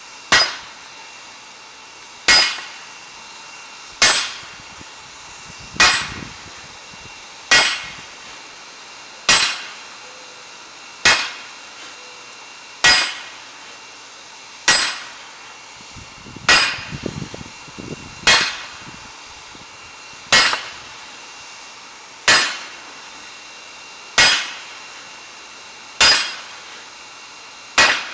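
Hammer blows on a red-hot sword blade lying across a round steel block anvil, one strike about every two seconds, each a sharp clang with a short ringing that dies away.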